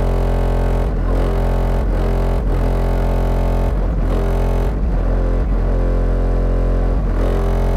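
Very loud bass-heavy music played through a car audio system, a Mayhem 15 subwoofer in a custom box driven by an SAZ3000 amplifier, heard from inside the cabin. Deep bass notes dominate and change with the beat.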